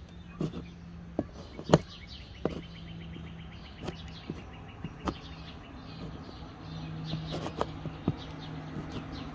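Birds chirping outside, one giving a fast trill, over a steady low hum. Sharp clicks and taps come every second or so, the loudest a couple of seconds in, as a putty knife spreads and works Bondo body filler on a door panel.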